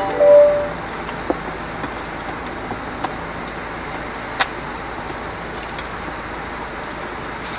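Steady road and engine noise inside a Mini Cooper's cabin while driving. A short electronic beep sounds about half a second in, and a few faint clicks follow.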